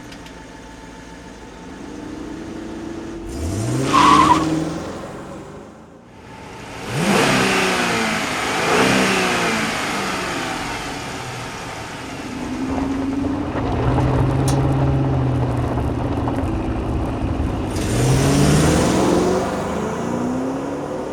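Chrysler 300C's Hemi V8 revving several times, its engine pitch rising and falling with each rev.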